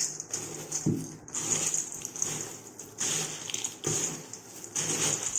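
Crisp fried gram-flour snack pieces (mixture and boondi) being stirred and tossed together in a vessel, rustling and crunching in strokes about once a second, over a steady high hiss.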